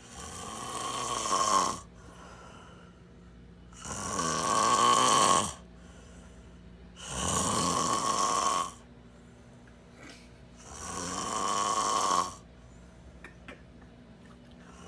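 A person snoring hugely: four long, loud snores about every three and a half seconds, each lasting about a second and a half and building in loudness before breaking off, with quiet between them.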